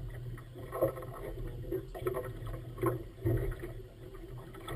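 A boat's 115 outboard motor running with a steady low hum, with water slapping irregularly against the hull in the chop.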